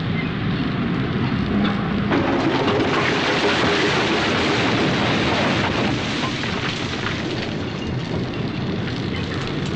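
Wet concrete being poured into a steel rebar framework: a steady rushing roar that grows louder about two seconds in.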